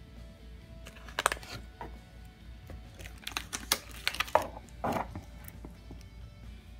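Clear plastic bag crinkling in a few short, crackly bursts as a wrapped 3D printer filament spool is handled, over quiet background music.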